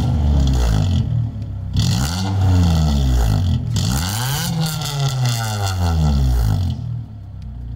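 A Honda Civic EM2's 1.7-litre four-cylinder engine revved several times through a cheap aftermarket header-back exhaust, its pitch climbing and falling about four times. The exhaust note is raspy and sounds pretty terrible.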